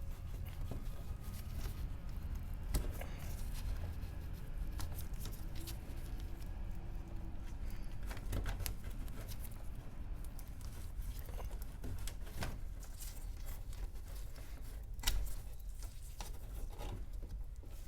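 Scattered small clicks and taps of parts being handled, over a steady low hum, with one sharper click about fifteen seconds in.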